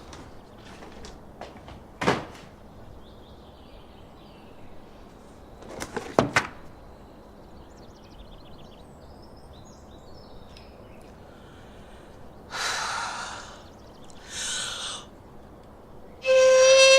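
Two sharp knocks a few seconds apart, then two short hissing rushes. Near the end a very loud, held, horn-like note starts abruptly.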